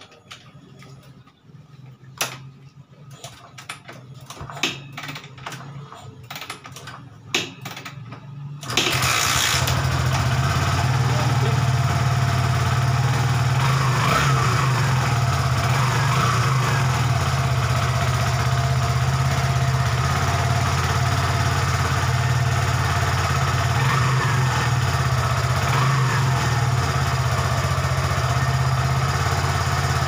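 Kawasaki Barako III 175's fuel-injected single-cylinder four-stroke engine being kick-started cold: a few faint clicks and taps, then it catches about nine seconds in and settles into a steady idle. It starts easily, showing no hard-starting.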